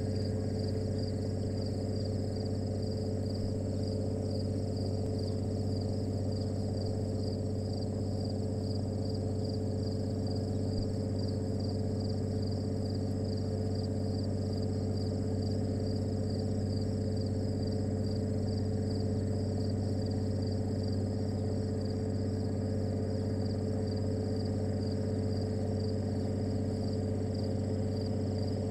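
A steady low hum with a high, evenly pulsing chirr of insects over it. No bird call is heard.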